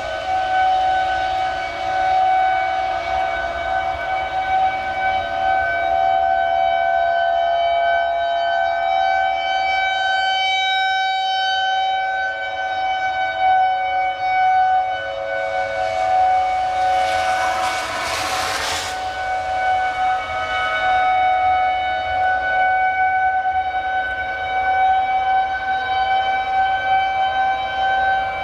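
Outdoor tornado warning siren sounding its steady single-tone wail, swelling and fading slightly in loudness, the alert signal for a tornado warning. A brief rush of noise swells and fades about two-thirds of the way through.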